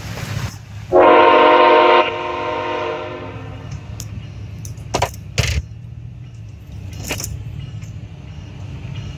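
Nathan K5HL five-chime air horn on an approaching BNSF freight locomotive, sounding one blast of about a second, then fading out over the next second and a half. A low rumble runs underneath, and there are a few sharp clicks near the middle.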